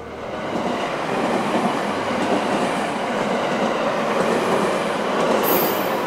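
Electric passenger train passing at close range over a level crossing: a steady rolling rumble of wheels on rail that builds over the first second and then holds. A brief very high-pitched sound comes near the end.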